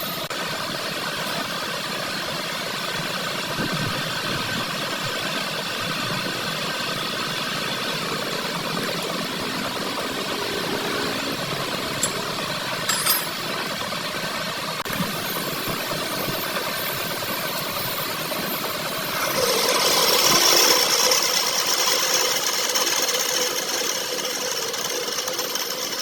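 Workshop machinery running steadily, with a couple of sharp clicks about halfway through and a louder stretch of hissing noise about three-quarters of the way in.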